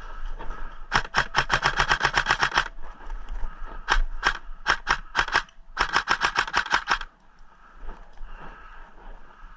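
Airsoft gun firing: a rapid burst of about ten shots a second lasting almost two seconds, then five single shots, then a second rapid burst of about a second.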